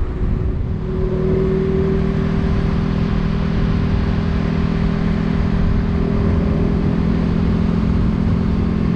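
Motorcycle riding at a steady speed on a gravel road: the engine holds an even hum over a continuous low rumble, its pitch settling and firming about a second in.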